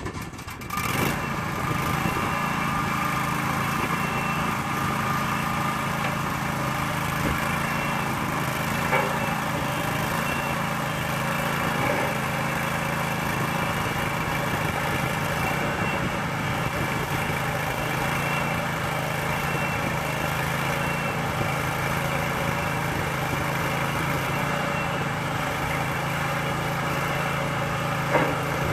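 Onboard engine of an Aust-Mech ADOG drive-over grain hopper running steadily while its hydraulics are worked. It comes up to a steady run about a second in, and there is a short knock near the end.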